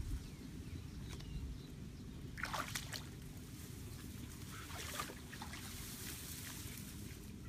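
Faint rustling and handling noises, in short bursts about two and a half seconds in and again about five seconds in, over a steady low rumble.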